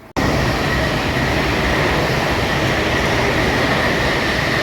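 Train running past at speed: a loud, steady rush of wheels on rail with a high whine running through it, starting abruptly just after the start.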